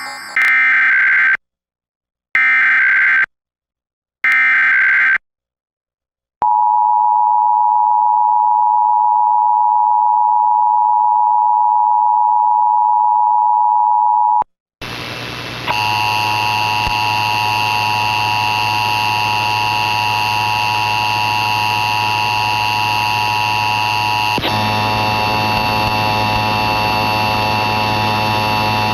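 Emergency Alert System test: the digital SAME header sent three times as short, shrill data bursts about a second apiece, then the two-tone attention signal held steady for about eight seconds. After a brief gap a steady electrical buzz with hiss follows, shifting slightly in tone about two-thirds of the way through.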